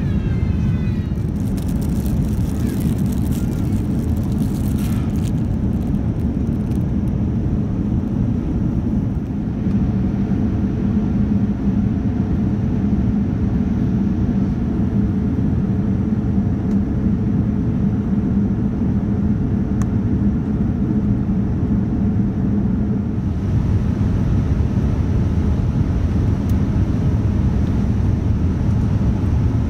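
Steady, loud drone of a Boeing 787-9 heard from inside the economy cabin during the climb: engine and airflow noise. In the first few seconds a plastic bag crinkles in the hand.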